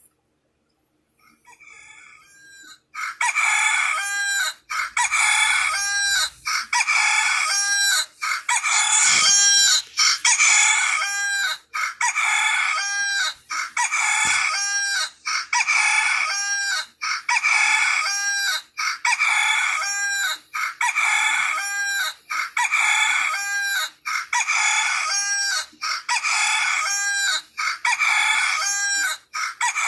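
Rooster-crow alarm tone played through a phone's small speaker, looping over and over. It starts faint about a second in and is loud from about three seconds on.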